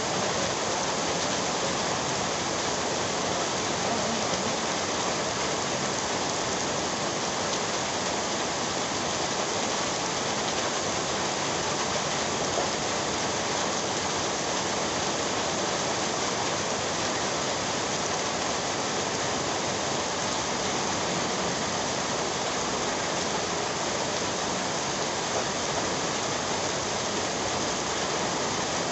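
Heavy rain pouring steadily onto a wet paved walkway, an even hiss of many splashing drops.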